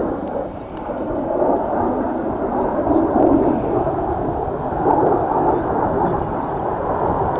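Jet noise from the MiG-29UB's twin RD-33 turbofan engines: a continuous deep rumble that swells and eases in waves.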